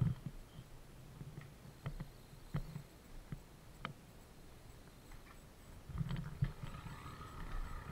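Faint scattered clicks and knocks from a small camera being handled and moved about, with a few low bumps a little past the middle.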